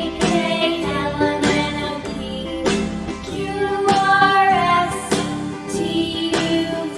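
Children's song music: a sung melody over a light instrumental backing with a steady beat.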